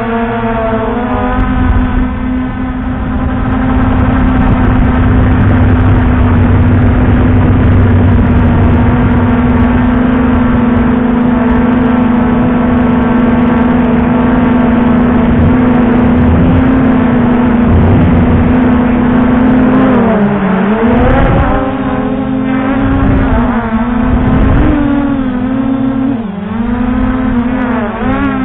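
Brushless motors and propellers of an MJX Bugs 2SE quadcopter whining steadily, heard through the action camera mounted on the drone, with a low rumble underneath. In the last third the pitch dips and rises again several times as the motors change speed.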